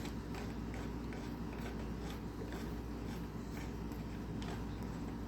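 Faint, irregular small clicks and scrapes of a crank puller being threaded into a bicycle crank arm, over a steady low hum.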